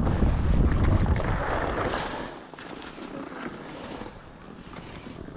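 Wind buffeting the microphone of a skier's body-worn camera, over the hiss of skis sliding on snow. The wind rumble is heavy for the first two seconds, then eases to a quieter, steady noise.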